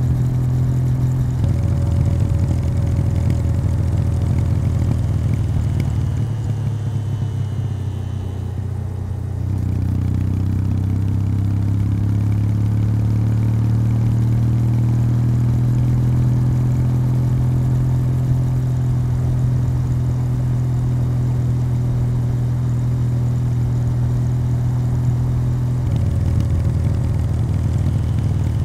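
Kawasaki W800's air-cooled parallel-twin engine running through its stock exhaust while riding at a steady cruise. The engine eases off for a few seconds around six to nine seconds in, then picks up again, its note rising as it pulls steadily.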